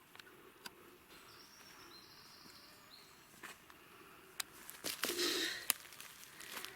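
Footsteps rustling through forest-floor litter, with sharp snaps of twigs and a louder rustle a little after five seconds in. A high, even bird call sounds for about a second and a half early in the stretch.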